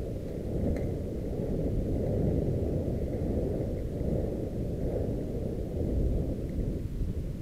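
Steady low rumble of wind buffeting a helmet-mounted camera's microphone, mixed with mountain-bike tyres rolling over a dirt trail, during a fast descent. A faint click comes about a second in.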